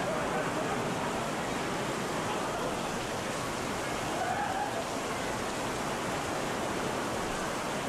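Torrential downpour: heavy rain pouring onto a paved terrace and running in streams off the edges of an awning, a steady dense hiss.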